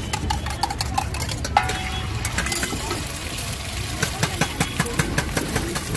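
An egg frying on a hot, oiled flat griddle for an egg roll, with frequent sharp clicks of metal utensils, over a steady low engine-like rumble.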